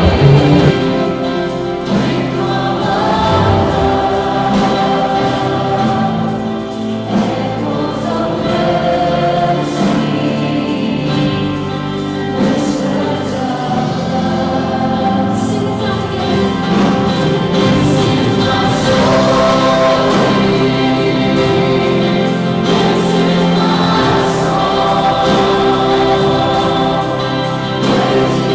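Many voices singing a worship song together with musical accompaniment, steady and full throughout.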